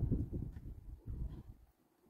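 Low, uneven rumble of buffeting on the microphone, dying away near the end.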